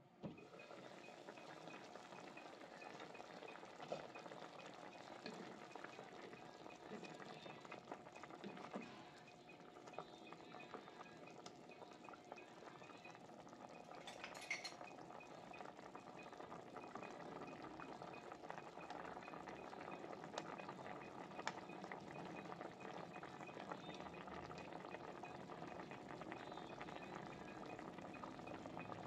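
Pork sinigang broth with taro boiling in a pot: a steady, faint bubbling with occasional small pops.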